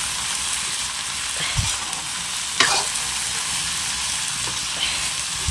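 Chopped okra and onion sizzling in a kadhai over a wood fire while a ladle stirs them. Now and then there is a short scrape of the ladle against the pan, the clearest about halfway through. The vegetables are at the bhuna stage, being fried with their spices.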